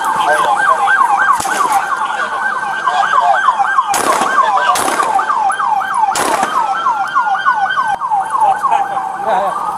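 Police siren sounding continuously, switching between a fast yelp and a slower wail. Three gunshots crack over it, about four, five and six seconds in.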